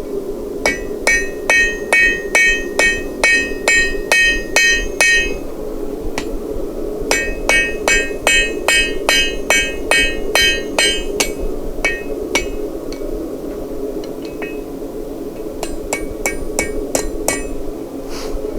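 Blacksmith's hammer forging hot steel on an anvil in runs of steady blows, about two and a half a second, each strike ringing. The runs are separated by short pauses with a few lighter, scattered taps.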